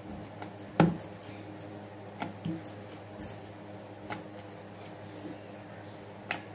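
Rolling pin knocking and clicking on a wooden board as folded chapati dough is rolled out: scattered light knocks, the loudest about a second in, over a low steady hum.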